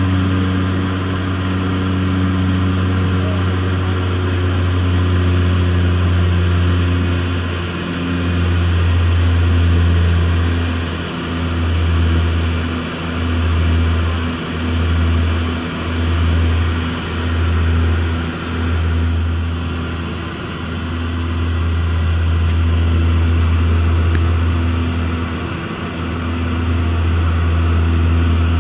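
Propeller seaplane in flight, heard from inside the cabin: a loud, steady low engine and propeller drone. From about eight to nineteen seconds in, the drone pulses in a slow, even beat roughly every second and a half, then steadies again.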